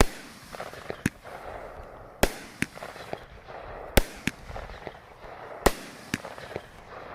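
Winda Fireworks 'Out of Control' 200-gram ten-shot firework cake firing: loud sharp bangs every second or two, with smaller pops and a crackle between them.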